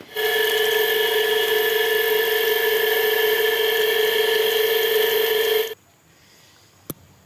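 Power tool running at a steady speed, a high whine over a hiss, for about five and a half seconds before it cuts off suddenly. A single sharp click follows near the end.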